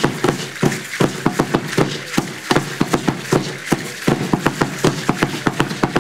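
Percussion for Aztec dance: a fast, steady run of sharp clattering beats, about five a second.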